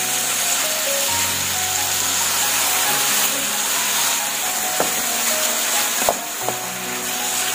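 Cubed pork sizzling in butter in a nonstick frying pan while a wooden spatula stirs it, with a couple of sharp taps against the pan in the second half. Background music with held low notes plays underneath.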